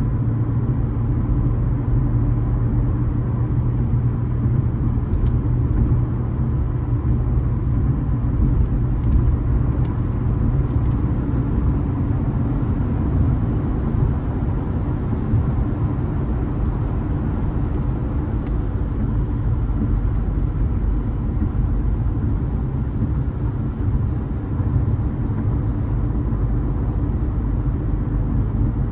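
A car being driven, heard from on board: a steady low rumble of engine and road noise.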